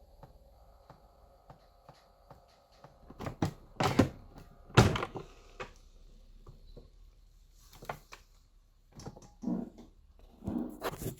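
Instant Pot pressure cooker being handled, with a series of clicks and knocks. The two loudest knocks come about four and five seconds in, and softer clunks follow near the end. There is no steam hiss.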